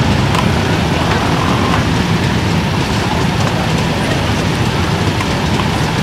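Many motorcycle engines idling together in a long column waiting to move off, a steady low mass of engine noise.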